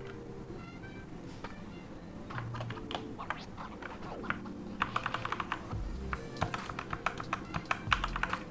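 Keys of a Digital Alliance Meca Air mechanical keyboard clicking: a few scattered presses at first, then rapid repeated presses from about five seconds in, over background music.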